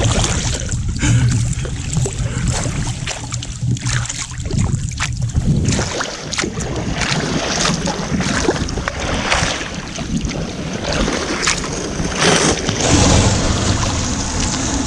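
Sea kayak being paddled through open water, with paddle splashes and water washing along the hull in irregular strokes. Wind buffets the microphone with a heavy low rumble for the first several seconds, then eases.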